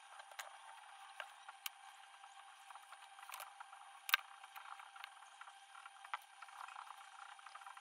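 Faint clicks and scrapes of hands and a clay-working tool on a leather-hard clay pitcher as a handle is scored and pressed on, over a steady hiss; a handful of sharp clicks, the loudest about four seconds in.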